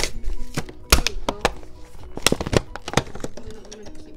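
Cardboard and clear plastic toy packaging giving a run of sharp cracks and snaps as the box is pulled open by hand, over background music.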